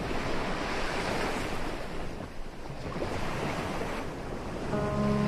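Steady rush of ocean surf with wind. Music comes in near the end.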